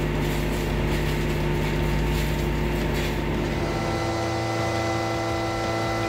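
A crane truck's engine and hydraulics running steadily while its crane-mounted grapple saw head cuts through tree limbs. A little under four seconds in, the running sound changes to a different, steadier hum.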